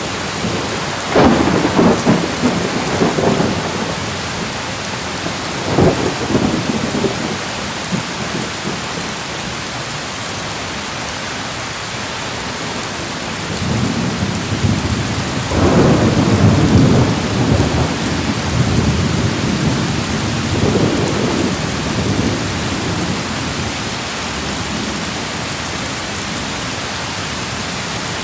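Steady heavy rain with rolling thunder: a rumble about a second in, another near six seconds, and a longer rolling peal through the middle that fades away.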